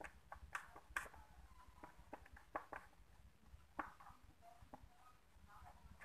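Faint, scattered clicks and taps of hard plastic as hands work the position-light housing loose from a motorcycle's plastic front shield.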